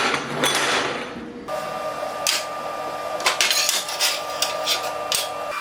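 Lengths of steel square tube sliding and clanking as they are laid out, loudest in the first second and a half. After that come lighter, scattered metal clicks and taps over a steady hum.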